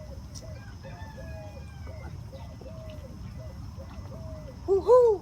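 Chickens clucking, short calls repeating every few tenths of a second. A louder two-part cry comes near the end.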